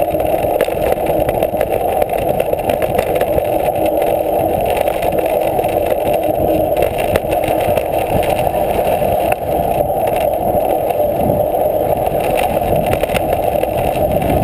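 Mountain bike riding a dirt trail, heard through a handlebar-mounted camera: a steady rumbling rush of knobby tyres rolling over dirt, with small knocks from bumps along the way.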